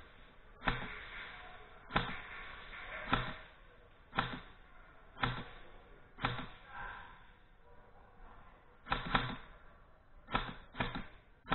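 Airsoft gun shots, sharp single pops with a short room echo, about one a second. After a pause they come again as two quick pairs near the end.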